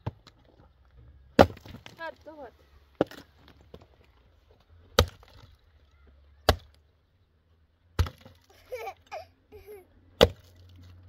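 An axe chopping into a dry, dead log: about six sharp strikes, roughly one and a half to two seconds apart.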